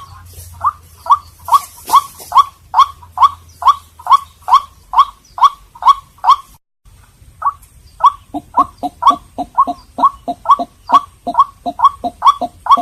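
White-breasted waterhen calling a rapid, steady series of short, hoarse "kwak" notes, about two or three a second. The calling breaks off briefly about seven seconds in, then resumes.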